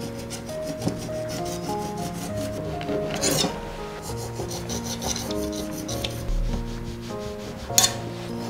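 Serrated knife sawing horizontally through a génoise sponge cake, a repeated rasping scrape with a louder stretch about three seconds in, and a sharp click near the end. Soft background music plays under it.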